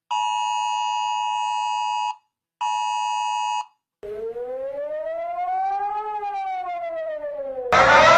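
Electronic emergency alert alarm tones: a steady multi-pitch alert tone sounds twice, first for about two seconds and then for about one, then a siren tone rises and falls once over about four seconds. A louder rising siren cuts in near the end.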